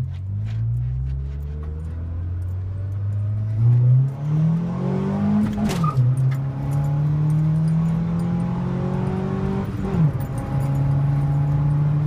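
Honda D15 four-cylinder engine heard from inside the cabin, accelerating hard: the revs climb, drop sharply at an upshift about six seconds in, climb again and drop at a second upshift about ten seconds in, then hold steady.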